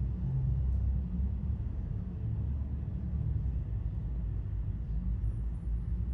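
Wind buffeting the microphone: an unsteady, choppy low rumble with little above it.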